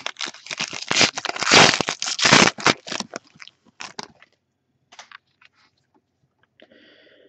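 A foil trading-card pack wrapper (2013-14 Panini Elite basketball) crinkling and tearing as it is ripped open, loud for about three seconds, then fading to a few soft rustles.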